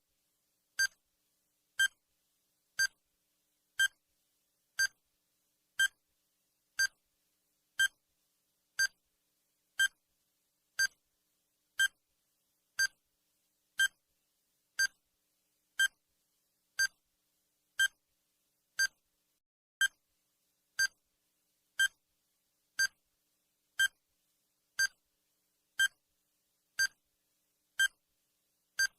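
Countdown timer's sound effect: a short, identical high-pitched beep once every second, evenly spaced, with silence between.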